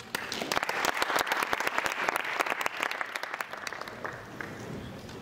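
Audience applauding, greeting a finished speedcube solve; the clapping swells quickly and fades out about four seconds in.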